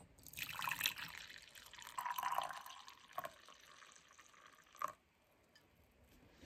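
Hot coffee poured in a stream from a glass coffee-maker carafe into a ceramic mug, loudest over the first three seconds and then quieter. There is a single sharp clink about five seconds in.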